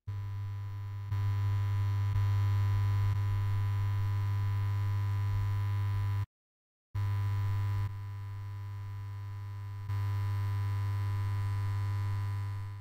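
Steady low electronic hum with fainter steady tones above it, cutting out for about half a second just past six seconds in and stepping up and down in level a few times.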